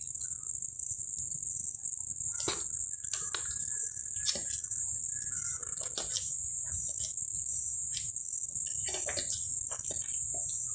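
A person eating instant noodles: slurping, chewing and the odd click of a fork or spoon against the plate in short separate sounds. Over it runs a steady high-pitched whine.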